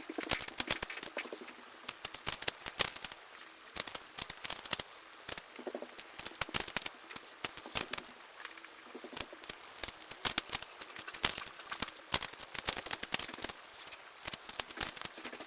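Plastic 5x5 Rubik's cube being turned by hand: a rapid, irregular stream of clicks and clacks as the layers turn during edge pairing.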